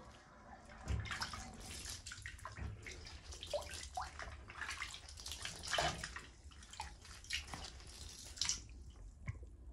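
Shallow bathwater in a tub splashing and dripping in irregular bursts as a young chicken is washed by hand. The splashing starts about a second in and stops shortly before the end.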